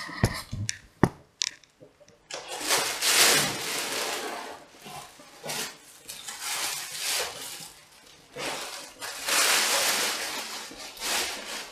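A few knocks from the camera being handled, then rustling and crinkling of plastic wrap and cardboard packaging as a paper cutter is unwrapped and pulled out of its box, in two long spells.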